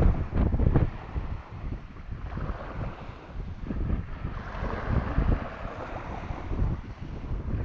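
Sea waves washing, with wind buffeting the microphone in gusts, strongest in the first second.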